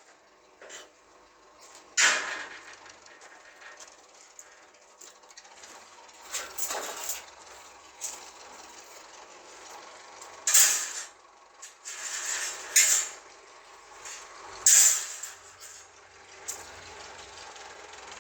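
Metal parts clanking in a workshop: several sharp clanks a few seconds apart, four of them loud, and a longer scraping clatter between the first two, over a low hiss.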